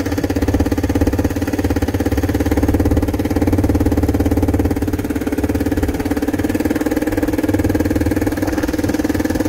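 Small vehicle engine running steadily at an even, unchanging pace.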